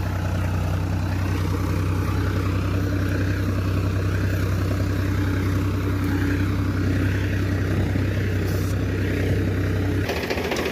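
Powertrac Euro 50 tractor's diesel engine running steadily under load while it drives a rotavator through a wet field. Near the end the sound cuts abruptly to the same engine heard close up, clattering rapidly.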